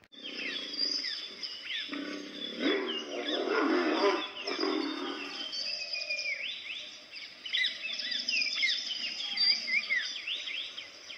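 A big cat growls low and rough, loudest for a few seconds near the start. Birds chirp rapidly throughout over a steady high buzz.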